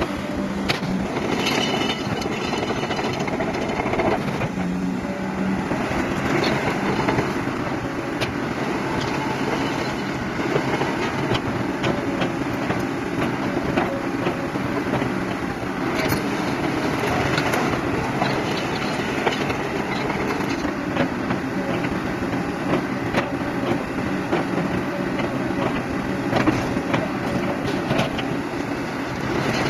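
Komatsu PC130 crawler excavator's diesel engine running steadily.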